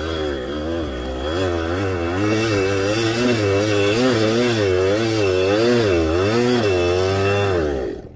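Kawasaki KDX two-stroke dirt bike engine revving under load on a muddy hill climb, its pitch surging up and down about twice a second as the throttle is worked. The sound breaks off suddenly near the end.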